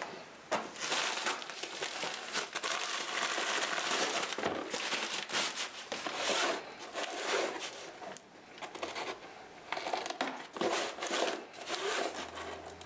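Plastic shipping mailer crinkling and rustling as it is opened and a cardboard box is pulled out of it, followed by the box being handled and its flaps opened. The rustling comes in irregular bursts, heaviest in the first half.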